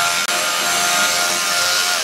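Electric belt sander running steadily, its moving belt abrading the face of a redwood panel, with a steady motor whine over the sanding noise. The sound drops out for an instant about a quarter second in.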